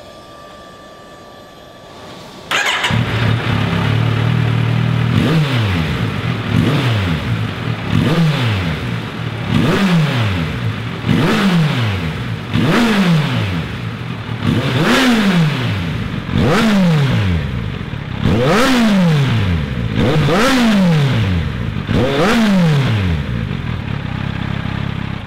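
Kawasaki Z900's inline-four engine breathing through a Cobra Sport tri-oval carbon fibre silencer. After a faint hum it starts about two and a half seconds in and idles briefly, then is blipped about ten times, the pitch rising and falling with each rev.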